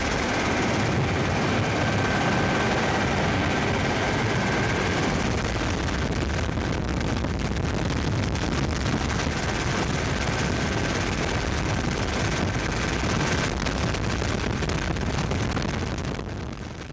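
Helicopter in flight heard from inside the cabin: the steady noise of the turbine engine and rotor blades, with a faint thin high whine that comes and goes.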